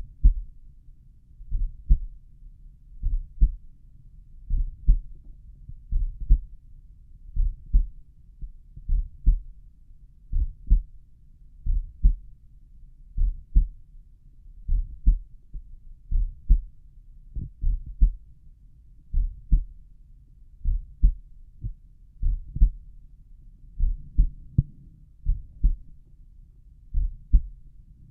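Slow resting heartbeat heard through a stethoscope at the tricuspid area: steady lub-dub pairs of low thumps, about forty beats a minute.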